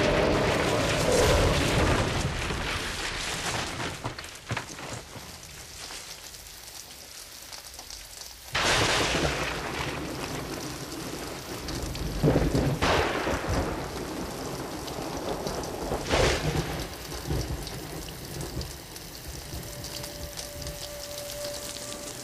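Thunderstorm: steady heavy rain with three sudden cracks of thunder partway through, each rumbling away over a second or two. Soft held music notes come in near the end.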